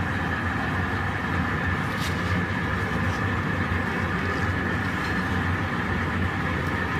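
Gas-fired glory hole furnace running: a steady rush of burner noise over a constant low hum, unchanging throughout, with a few faint ticks.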